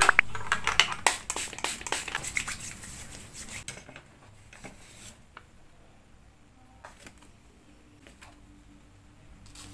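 Small packaged items, sachets and cards rustling and clicking as they are picked out of plastic organizer bins. It is a dense run of rustles and light clicks for about four seconds, then only scattered clicks.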